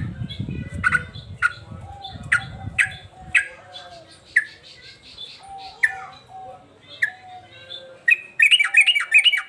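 Male yellow-vented bulbul (trucukan) calling: short, sharp notes repeated about one or two a second, breaking into a fast run of notes near the end. A low rumble sits under the first few seconds.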